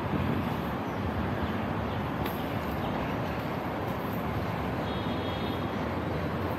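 Steady city street ambience: a continuous hum of road traffic.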